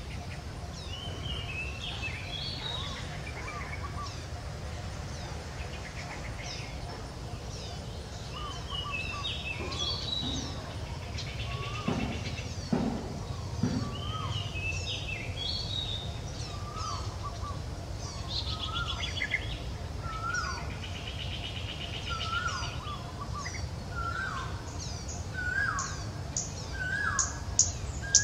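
Several birds chirping and calling over a steady low outdoor rumble, with a run of repeated falling notes in the last few seconds. A few soft knocks come about twelve seconds in.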